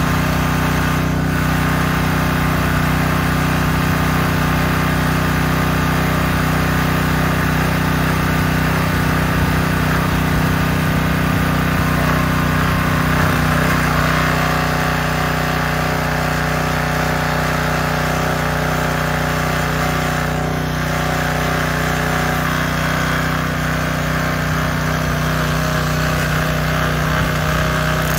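Gasoline pressure washer's small single-cylinder engine running steadily.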